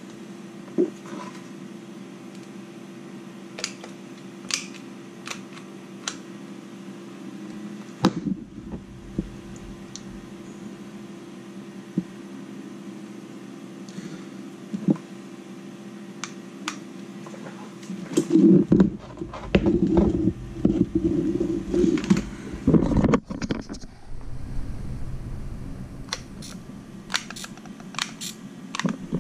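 Scattered clicks and knocks of hands handling small plastic parts and cables on an RC crawler, over a steady hum. About two-thirds through there is a few seconds of louder rubbing and knocking.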